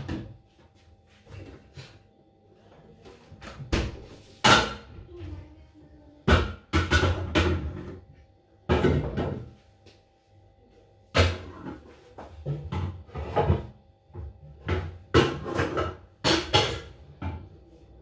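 Kitchen clatter: pots, dishes and utensils being handled, knocked and set down on a counter, in irregular sharp knocks and clanks, over a faint steady hum.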